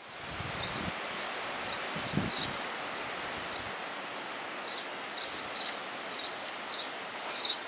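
Small birds chirping, many short high calls repeating over a steady outdoor background hiss. There are a couple of brief low thumps about one and two seconds in.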